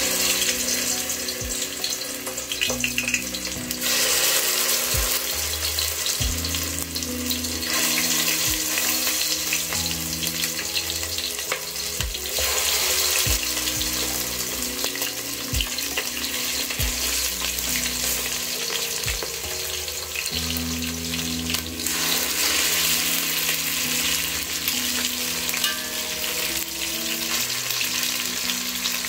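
Chicken pieces frying in hot oil in an aluminium pot, a steady sizzle that swells in stretches as more pieces go in. Metal tongs click against the pot now and then.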